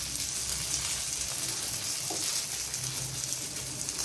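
Potato and sabudana (tapioca pearl) cutlets shallow-frying in oil in a nonstick pan: a steady sizzle with fine crackling.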